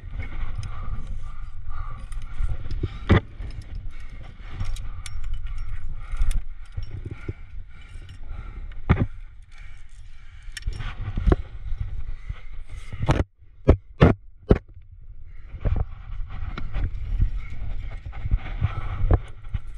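Wind rumbling on the microphone, with the clinks and clicks of climbing gear, carabiners and cams on the rack, as protection is placed in the crack. Near the middle comes a quick run of about four sharp clicks.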